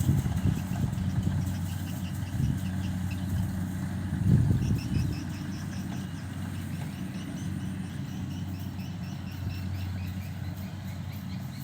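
Engine of a rice harvesting machine running steadily with a low hum, with louder uneven knocks in the first few seconds. Faint high chirps sound over it in the second half.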